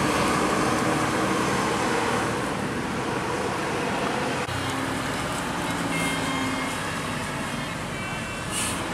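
Tour buses and a car going by on a road: steady engine and tyre noise from passing vehicles.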